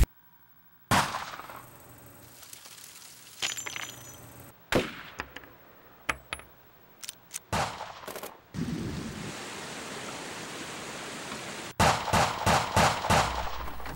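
Scattered sharp bangs and metallic clanks, then a quick string of about half a dozen rifle shots from an AR-style rifle near the end.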